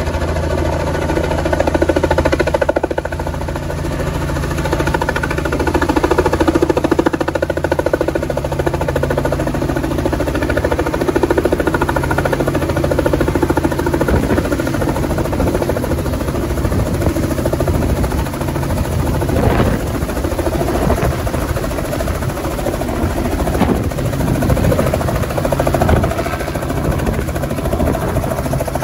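Robinson R44 helicopter coming in to land and hovering down onto a pad. Its main rotor beats rapidly over the steady drone of its six-cylinder piston engine, loud throughout.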